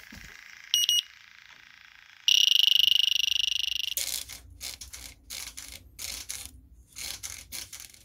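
Infrared refrigerant leak detector beeping twice, then sounding a steady alarm tone for about two seconds as it picks up refrigerant at a small leak. This is followed by irregular short bursts of hiss.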